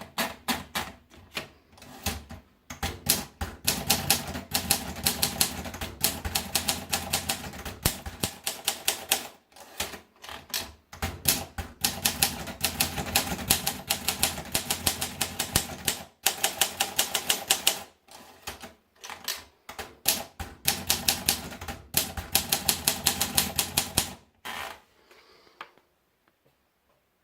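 Olympia Monica manual portable typewriter being typed on: fast runs of key strikes with a few short pauses, stopping about 25 seconds in.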